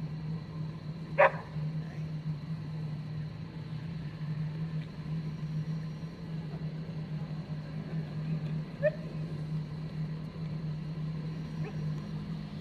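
A steady low hum, the unexplained sound heard in the sky, runs without change throughout. A dog barks once sharply about a second in, the loudest sound here, and once more faintly near nine seconds.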